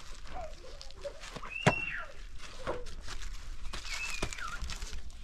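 A few short high chirping animal calls, one or two falling in pitch, with one sharp knock a little over a second and a half in.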